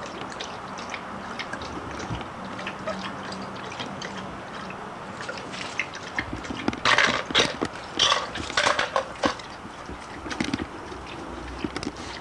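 Puppies playing: scattered clicks and scratches, with a louder spell of scraping and rustling about seven to nine seconds in.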